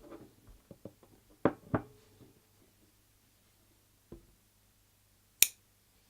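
A run of small knocks and handling clicks in the first two seconds, with two louder knocks close together about a second and a half in, a single softer knock around four seconds, and one sharp, bright click near the end.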